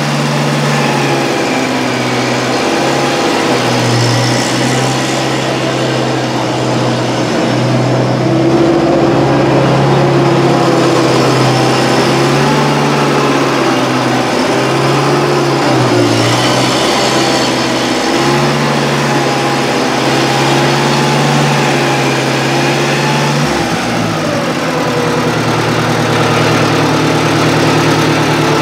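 The gasoline engine of a 1970s Bobcat 610 skid-steer loader running after a cold start. Its speed shifts up and down every few seconds, with a clear change in pitch near the end.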